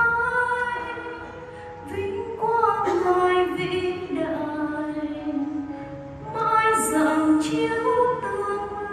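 Women singing a slow hymn, with long held notes that move up and down in steps.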